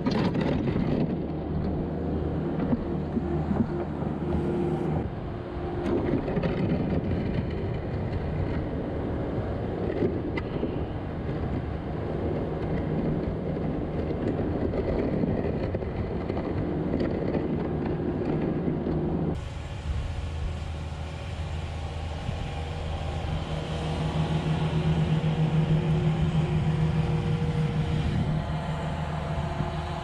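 Skid-steer loader engine running steadily under load while clearing snow. About two-thirds of the way through, the sound changes abruptly to a steadier, higher hum.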